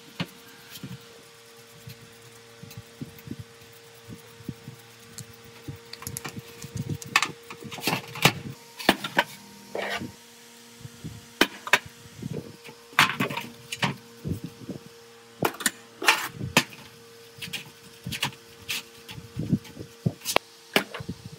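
Workshop hand work: irregular clicks, knocks and short scrapes of tools and parts, over a faint steady hum.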